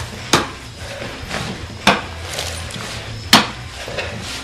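A hoe chopping into packed dirt as a trench is dug: three sharp strikes about a second and a half apart.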